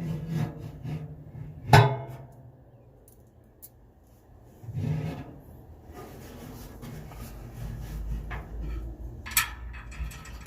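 Knocks and scraping of metal parts being handled while a smokestack is bolted to a pellet grill's sheet-metal barrel. The sharpest knock comes about two seconds in, with smaller ones around five seconds and near the end.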